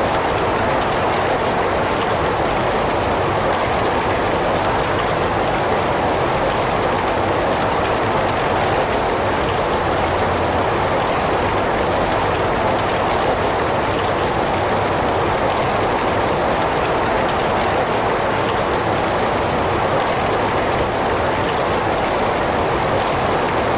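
Heavy rain falling steadily, an even, unbroken hiss of rain with no drops or gusts standing out.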